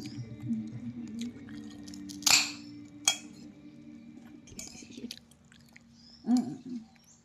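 A person chewing and eating. A short, loud, noisy sound comes about two seconds in, then a single click about a second later.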